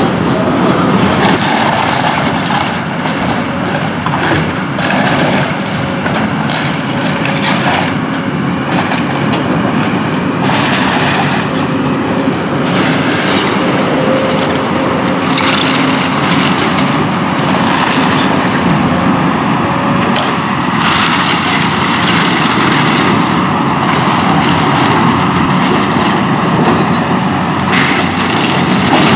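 Kobelco tracked excavator running hard while its bucket tears into a wood-frame house, with repeated cracks and crashes of splintering timber and falling debris over the steady machine noise.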